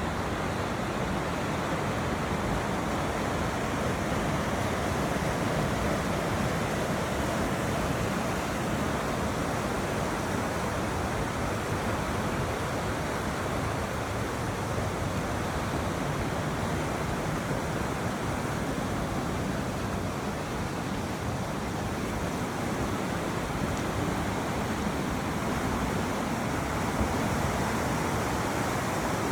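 Mountain river rushing, a steady unbroken sound of fast-flowing water.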